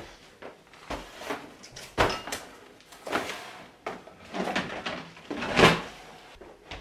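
Packing gear being handled and set down on a wooden floor: a string of knocks and thumps from boxes, a hard plastic case and bags, the loudest near the end.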